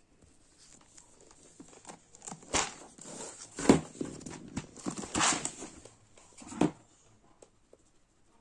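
A full cardboard box of tofu cat litter being picked up and turned around by hand: rubbing and rustling with four knocks, the loudest about three and a half seconds in.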